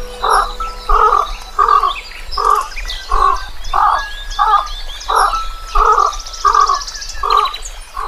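An animal calling in a steady, repeated series, about eleven short calls roughly 0.7 s apart, with faint bird chirps higher up.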